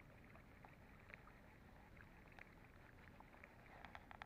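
Near silence: faint low outdoor background noise with scattered small clicks, which bunch into a quick cluster near the end.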